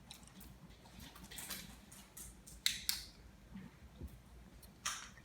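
Light plastic clicks and taps from handling a TV remote, with a few sharper clicks about three seconds in and again near the end.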